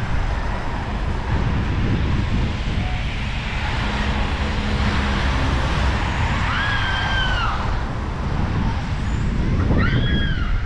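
Strong wind buffeting the microphone over a steady rush of outdoor noise. Two short calls from a bird, each rising and then falling in pitch, cut through: a longer one about two-thirds of the way in and a shorter one near the end.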